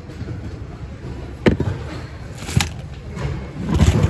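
Sharp knocks and thuds of small items being handled and dropped back among the goods in a thrift-store bin: one about a second and a half in, another a second later, and a quick cluster near the end, over a low steady background rumble.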